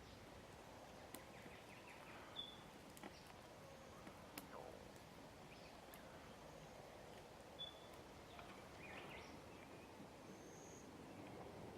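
Faint bush ambience with scattered short bird chirps and calls, and a few light clicks.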